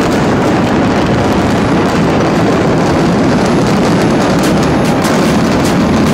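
Steady, heavy rumbling roar of a brick apartment high-rise collapsing in a controlled explosive implosion, with a few sharp crackles of falling debris near the end.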